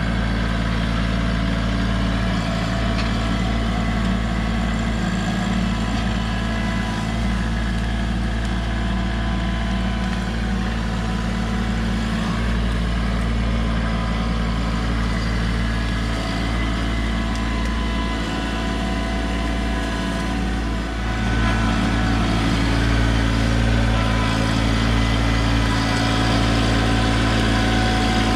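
Kubota LX2610 compact tractor's diesel engine running steadily, getting somewhat louder about three-quarters of the way through.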